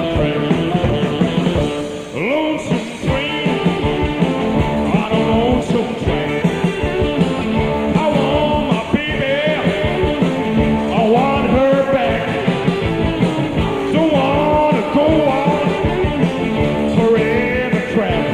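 A rock-and-roll blues band playing, with guitar, drums and singing, at a steady beat.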